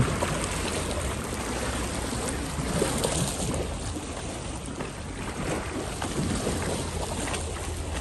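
Lakeshore ambience: small waves lapping against the shoreline rocks, with a steady low rumble of wind on the microphone.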